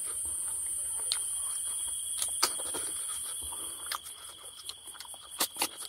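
Eating sounds of someone eating snails: short mouth clicks and smacks, a few in the first half and many close together in the second, over a steady high-pitched hiss.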